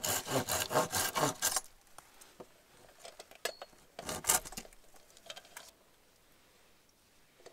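A small plastic bottle's screw cap is twisted open with rapid rasping clicks, about five a second, that stop about a second and a half in. About four seconds in comes a brief scrape as the hurricane lantern's metal filler cap is opened.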